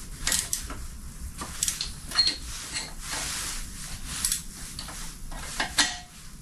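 Metal tools clinking and scraping together: oxygen sensor socket adapters being handled and tried. A series of sharp clinks, some ringing briefly, with a short stretch of scraping about three seconds in.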